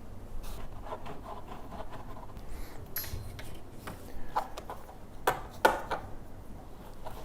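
Handling noise from assembling a compost tumbler: soft rubbing and scraping with scattered light clicks, and two sharper knocks a little past halfway.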